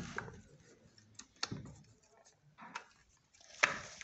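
Scattered light clicks and rattles of a chainsaw's chain and a screwdriver at the bar's tensioner as the chain is handled and tightened, with a louder, longer rattle near the end.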